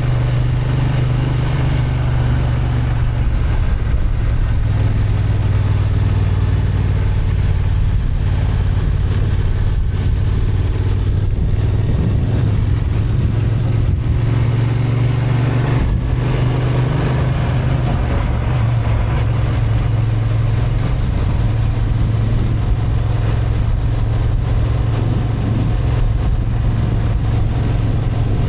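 Honda XL750 Transalp's parallel-twin engine, restricted to 35 kW, running steadily under way on a climb, with a low, even engine note. The note shifts briefly about 3 seconds in and again around 16 seconds.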